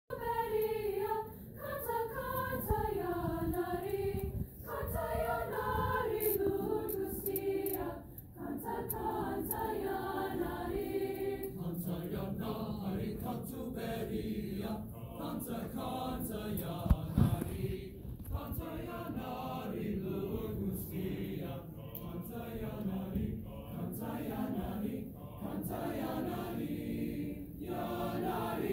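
High school choir singing in parts, boys' and girls' voices together, the voices moving through a sung phrase. There is a brief bump about seventeen seconds in.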